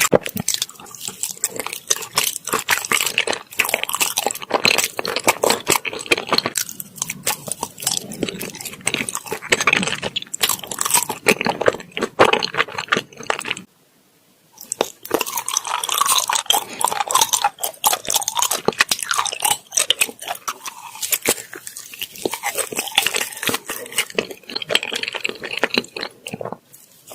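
Close-miked chewing and biting of soft fruit-shaped rice cakes: dense, sticky, wet mouth sounds with irregular smacks and clicks, broken by a brief silence about halfway through.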